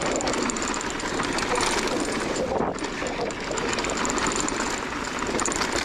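Mountain bike descending a loose dirt and gravel trail: tyres crunching and skittering over the stones, with the bike's chain and components rattling continuously.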